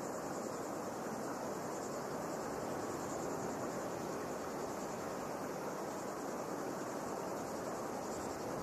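Steady ambient noise of an outdoor diving venue: an even hiss with no distinct events.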